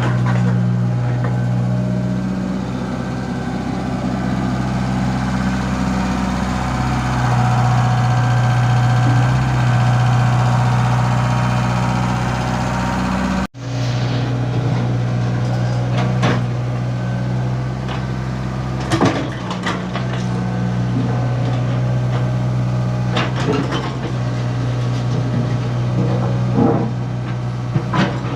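Komatsu PC75 mini excavator's diesel engine running steadily. It cuts out for an instant about halfway, and in the second half scattered metallic clanks and knocks sound over it.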